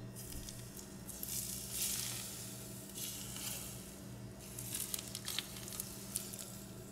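Super hot olive oil poured over a steamed whole black sea bass topped with sliced green onion and ginger, sizzling as it hits. The hiss comes in two spells, about a second in and again past the middle, with scattered crackles.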